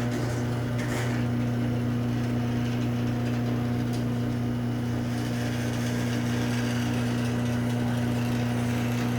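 Electric garage door opener running with a steady low hum that starts suddenly at the beginning.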